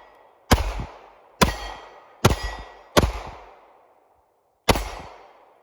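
9mm Glock pistol fired five times at an uneven pace, each shot a sharp crack with a ringing tail, with a longer pause before the last shot.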